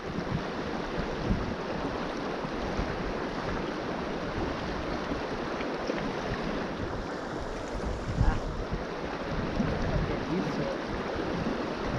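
River water rushing steadily, with wind buffeting the microphone in a fluctuating low rumble.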